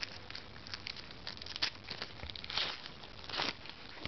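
Baseball trading cards being handled and flipped through by hand: quick clicks and light rustling of card stock, with two longer swishes about two and a half and three and a half seconds in as cards slide off the stack.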